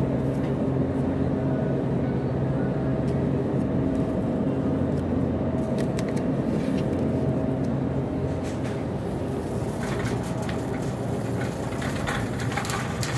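Shopping cart rolling over a polished concrete floor: a steady rumble, with more rattling and clicking in the last few seconds, over a steady low hum.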